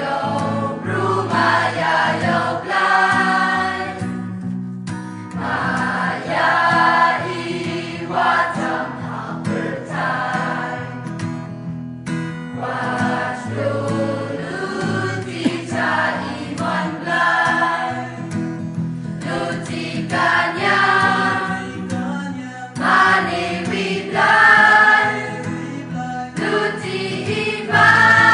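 Mixed choir of women and men singing a hymn, in phrases with short breaks between them.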